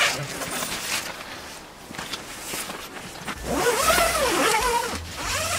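A two-slider zipper on the tent's fabric door being run, with the coated fabric rustling. The louder zip runs come about three and a half seconds in and again near the end, each rising and falling in pitch as the slider speeds up and slows down.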